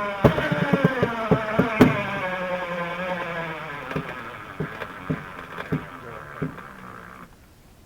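A motor running under load, its pitch slowly falling, with sharp knocks and cracks over it; it cuts off abruptly near the end.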